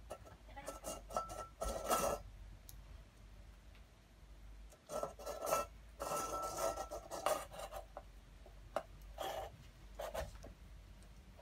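A small stainless-steel bowl being batted and pushed across a wooden floor by a cat, scraping and rattling with a ringing metallic tone in several bursts: a long stretch at the start, a longer one about halfway through, and short knocks near the end.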